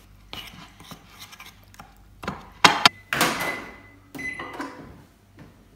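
Microwave oven in use: a few light knocks, then loud clunks from its door and the bowl being handled about two to three seconds in. The oven gives two short beeps, one near the middle and another about a second later, as the oats finish cooking.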